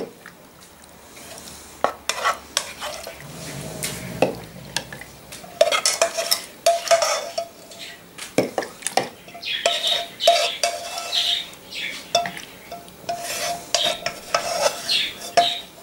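Plastic spoon scooping in a non-stick wok, with repeated scrapes and knocks against the pan and the glass jar as the oily cooked mushrooms are ladled out.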